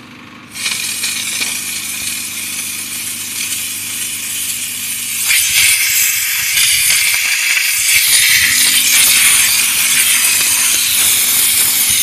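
Steam jetting from a commercial steam car-wash gun onto a car wheel, a loud steady hiss that starts about half a second in and grows louder about five seconds in. A low steady hum runs underneath and stops for a few seconds in the middle.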